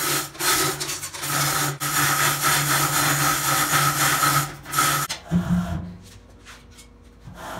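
Electric hoist motor running with a steady hum and whine while lowering the bandsaw on its chain, cutting out briefly a few times and stopping about five seconds in, followed by a short low knock.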